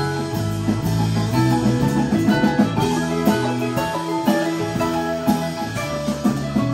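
Live band playing an instrumental passage: electric guitar and bass guitar over keyboard, drum kit and congas, with a steady beat.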